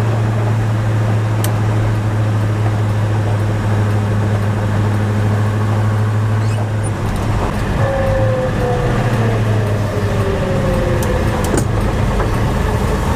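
Chevelle SS454's 454 big-block V8 running at a steady cruise with a deep, even exhaust drone. About eight seconds in, a higher whine slides slowly down in pitch for a few seconds.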